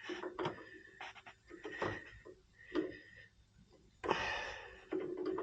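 Sharp metallic clicks and clanks of a hand tool against copper refrigerant tubing as a pinch-off tool is set on the line. About four seconds in there is a short breathy hiss.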